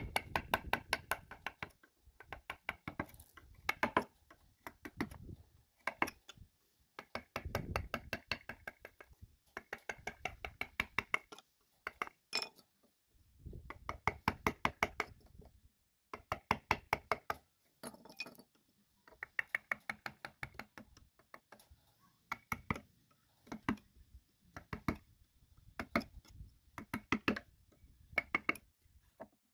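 Wood-carving chisel struck with quick, light mallet taps as it cuts into the wood. The taps come in bursts of about eight knocks a second, each burst a second or two long, with short pauses between.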